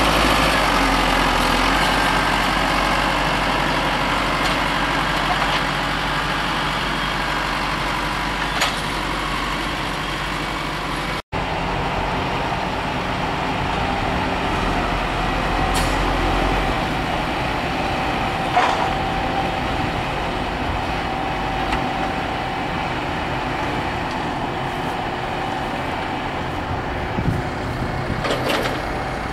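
Tractor engines running steadily as the tractors work a silage pit, with a few sharp knocks now and then. The sound drops out for an instant about eleven seconds in.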